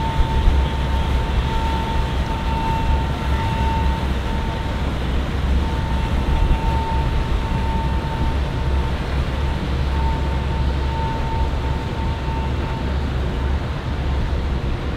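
Triple Mercury 450R supercharged V8 outboards running at low speed as the boat passes, a steady low drone with a thin high whine that comes and goes.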